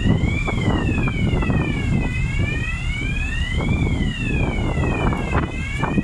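A wailing emergency-vehicle siren, its pitch sweeping slowly up and down, each rise and fall taking about three and a half seconds, over a steady low rumble of wind on the microphone.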